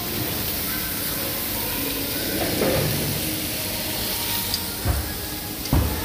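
Steady hissing background noise, with two short low thumps about a second apart near the end.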